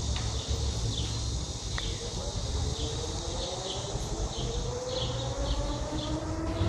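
Outdoor ambience: a low rumble of wind on the microphone, with insects chirping in short, high, evenly repeated notes about twice a second. Under it a faint distant tone slowly rises in pitch over several seconds.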